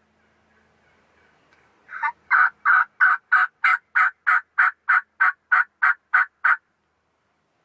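A long series of about fourteen evenly spaced turkey yelps, about three a second, starting about two seconds in and stopping after about four and a half seconds.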